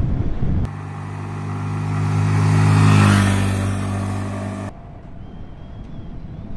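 Wind buffeting the microphone as a motorcycle is ridden, then a Honda Grom's 125cc single-cylinder engine passing by: its note grows louder to a peak about three seconds in, then drops slightly in pitch and fades. The sound cuts back to wind noise near the end.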